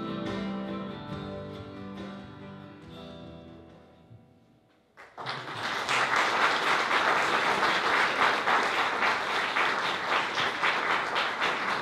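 Electric guitar through an amplifier, its closing notes ringing out and fading away; then, about five seconds in, an audience breaks into steady applause.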